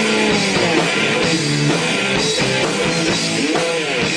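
Rock music with drums and electric guitar playing steadily.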